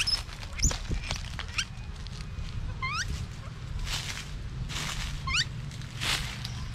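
Short, high animal chirps, each sweeping up in pitch, heard several times, with a few brief rustling bursts and a steady low hum underneath.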